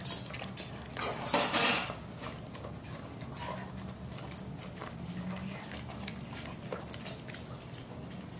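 A dog licking and eating food off a plate, with wet mouth sounds and small clicks against the dish. The loudest stretch comes between about one and two seconds in, then lighter licks and clicks follow.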